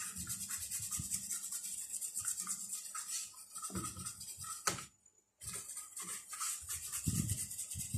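Toothbrush bristles scrubbing a laptop motherboard wet with thinner, a fast run of short brushing strokes, broken by a brief gap about five seconds in. The board is being cleaned of dirt that was making the Acer 4738 laptop shut off a few seconds after power-on.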